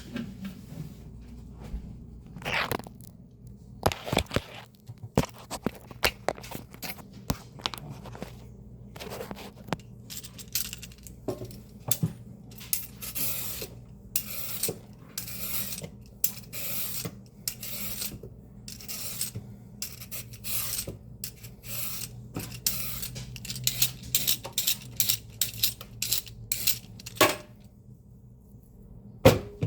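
Leafy greens being chopped: crisp cutting strokes, scattered at first and then in quick runs from about twelve seconds in, pausing briefly near the end. An electric fan hums steadily underneath.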